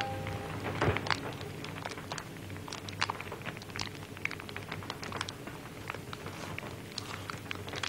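Kitchen work sounds of noodle dough being handled on a floured wooden pastry board: light, irregular taps and clicks, with one heavier thump about a second in.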